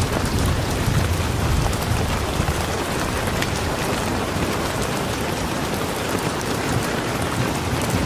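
Steady rain falling, with scattered drops pattering on a surface and a low rumble underneath in the first few seconds.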